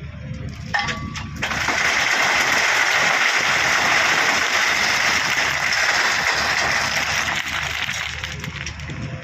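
Crushed stone pouring and rattling out of a Doosan DX140w excavator's bucket, a loud rushing hiss of many small stone impacts that starts abruptly about a second in and fades near the end, over the excavator's diesel engine running.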